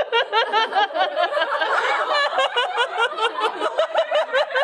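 Several women laughing hard together, in rapid, unbroken peals.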